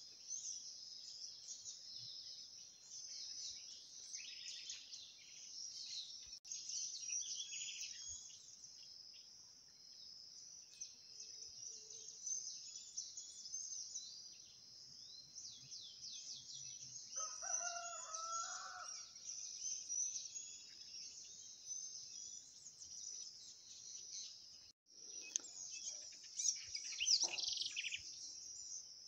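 A steady high insect drone, with many short bird chirps over it. A rooster crows once, for about two seconds, in the middle.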